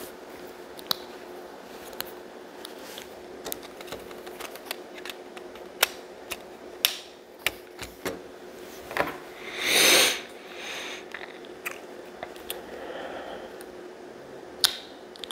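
LEGO plastic pieces clicking and snapping as small wheels and tyres are pressed onto a brick-built tractor: scattered sharp clicks, irregularly spaced. About ten seconds in comes a louder short rushing noise.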